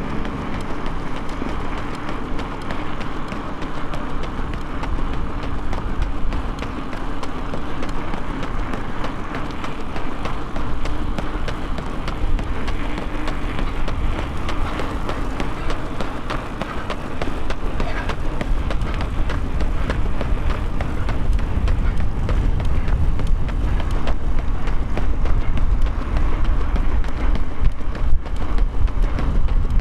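A runner's footsteps at speed, with wind rumbling on the microphone, growing stronger in the second half.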